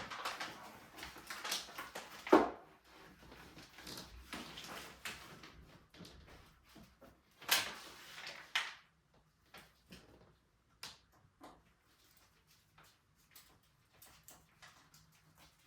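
Packaging being handled and pulled off a new bicycle, with rustling for the first several seconds. There is a sharp knock about two seconds in and a louder scrape-and-rustle near the middle, then only scattered light clicks and taps.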